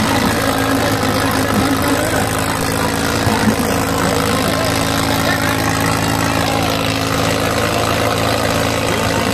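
Tractor's diesel engine running loud and steady at a constant speed, close by.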